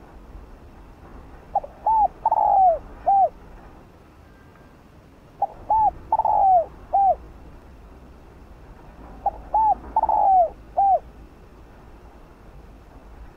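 Spotted dove cooing: three phrases about four seconds apart, each made of four notes, a short one, a rising-falling one, a longer, louder falling note, then a final shorter one.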